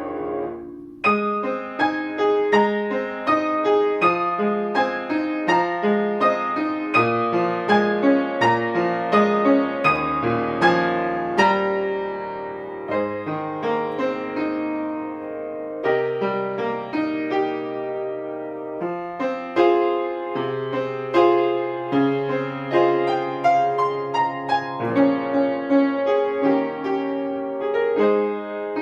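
Solo piano playing a choral song's accompaniment: a flowing run of notes over held bass notes, picking up again after a brief break about a second in.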